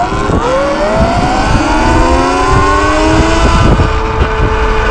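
Sur Ron X electric dirt bike's motor whining up in pitch as it accelerates hard in sport mode, then holding a steady whine at speed from about three and a half seconds in, over a low rumble.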